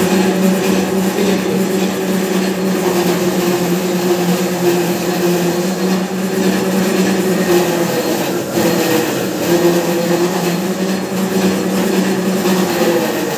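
Kavinstar Jumbo S25 industrial 6 mm strip-cut paper shredder running with a steady motor hum while pieces of cardboard are fed in and cut into strips.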